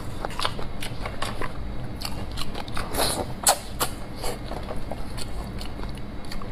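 Mukbang eating sounds: wet chewing and smacking as braised meat is torn off the bone and stripped with the teeth, a run of irregular small clicks with a louder burst about three seconds in.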